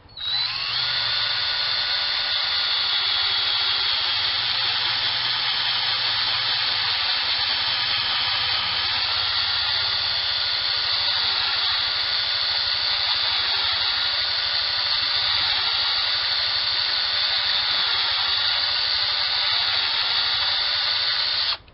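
Power drill running steadily with a stepped bit, boring pocket holes into a 2x4 brace through a Kreg pocket-hole jig. The whine dips slightly in pitch a few times as the bit loads up, and it starts and stops abruptly.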